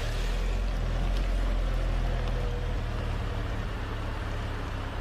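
Jeep Comanche pickup's engine running steadily with a low rumble.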